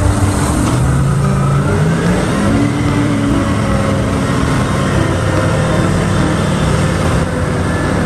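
Large off-highway haul truck's diesel engine running hard, its pitch rising over the first two seconds or so and then holding steady, as the hydraulic hoist raises the dump body.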